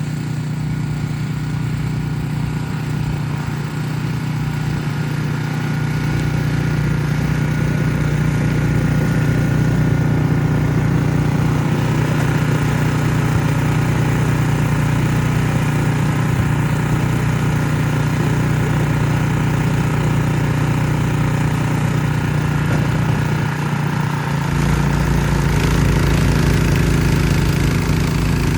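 Ariens Platinum SHO 24-inch two-stage snow blower running steadily while clearing snow. It gets louder about six seconds in, and its low rumble deepens near the end.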